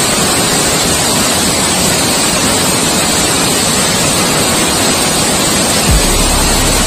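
Waterfall rushing steadily, white water pouring over rocks into a shallow pool. Near the end a deep low rumble with a thump comes in under it.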